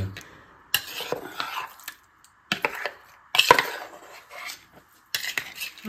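A knife cutting up set jelly in a bowl, the blade knocking and scraping against the bowl in several short bursts.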